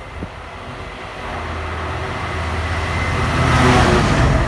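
Locomotive-hauled container freight train approaching and passing beneath, its engine note growing steadily louder. It is loudest about three and a half seconds in as the wagons run past.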